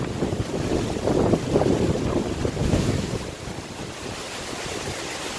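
Gusty wind buffeting the microphone and rushing through the leaves of the trees, stronger for the first few seconds and easing a little about three seconds in.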